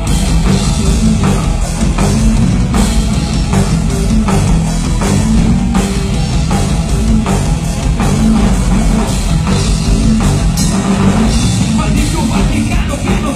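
Live heavy rock band playing loud: electric guitar, bass and drum kit in an instrumental passage without vocals, the drums hitting on a steady beat.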